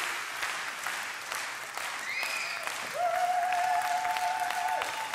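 Large audience applauding steadily, with a single long held note rising in about three seconds in and stopping near the end.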